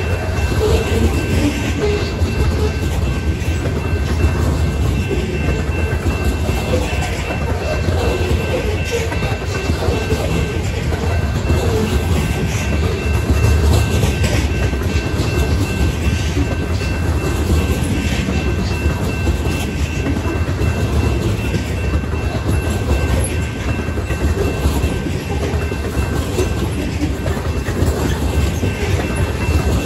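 Freight train of covered hopper cars rolling past close by: a loud, steady rumble of steel wheels on rail with continuous clickety-clack clatter, and a faint steady high ringing over it.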